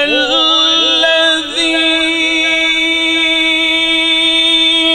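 Male Quran reciter (qari) in melodic tajweed recitation, sung into a microphone. He makes a few quick ornamental turns in pitch at the start, then holds one long steady note.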